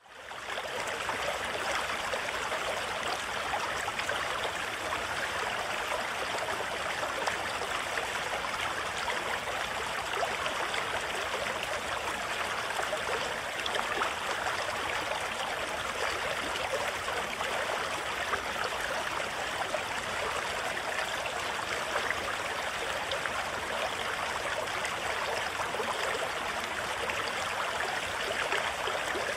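American River rushing through a small rocky rapid: a steady wash of whitewater over boulders, fading in at the very start.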